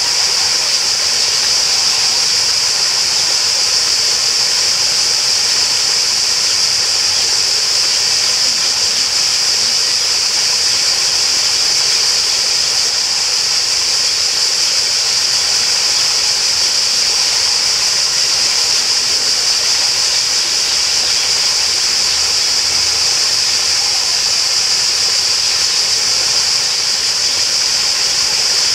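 Steady rush of flowing water, as of a stream or small waterfall, with a constant high hiss and no breaks or changes.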